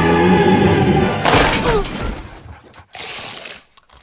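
Music with singing is cut off about a second in by a sudden loud crash of glass shattering, as a glass door is smashed through. A softer noisy sound follows about three seconds in.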